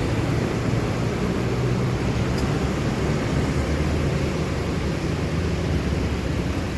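Steady noise of a vehicle on the move: a low engine hum under road and wind noise.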